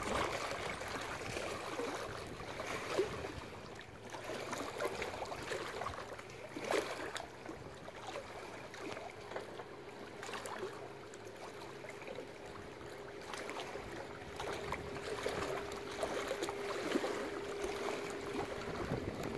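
Small river waves lapping against a rocky shore, with irregular little splashes and trickling as the water washes over the stones. A faint steady hum comes in about halfway through.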